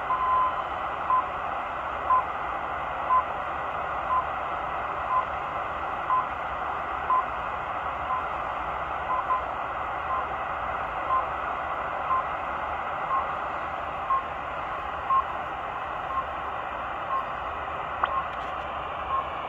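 RWM Moscow time-signal station received over shortwave on a Sangean ATS-909X2 portable receiver, tuned in upper sideband. Short beeping time pips come about once a second over a steady hiss of static, with a longer beep near the start and a closely spaced pair of beeps partway through.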